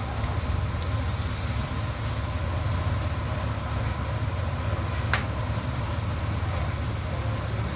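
Engine running steadily at an even speed, with a single sharp click about five seconds in.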